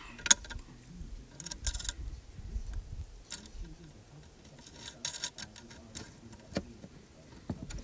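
Scattered light clicks and clinks of tools and mounting hardware being handled while a horn is fitted under a side-by-side's hood, with no steady rhythm and one sharper click near the start.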